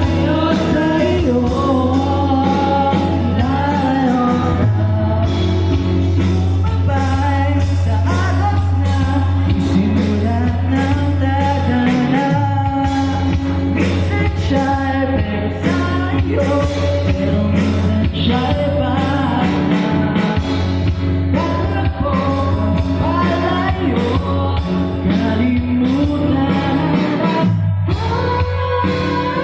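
Live band performance through a PA system: a singer's voice carries a melody over steady accompaniment.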